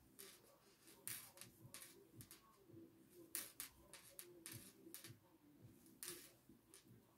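Very faint, irregular little clicks and rustles of a crochet hook and yarn being worked by hand, stitch by stitch.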